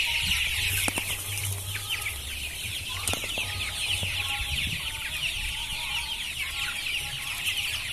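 A large flock of month-old KUB-2 village chickens peeping all together, many short, high, falling chirps overlapping in a steady chorus.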